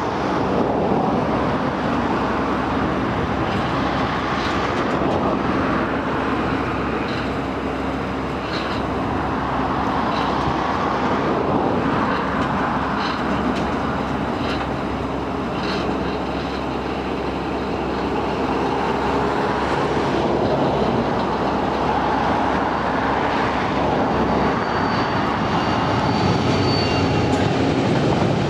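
An Irish Rail 071 class diesel-electric locomotive, with its EMD two-stroke diesel running, approaches and passes, followed by a long rake of Tara Mines ore wagons rolling by. There is a steady rumble with occasional short high squeaks and a longer thin wheel squeal near the end.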